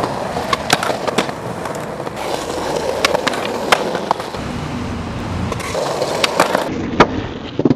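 Skateboard wheels rolling on concrete pavement, with the board grinding along a concrete ledge and a series of sharp clacks as the board is popped and lands, the loudest one near the end.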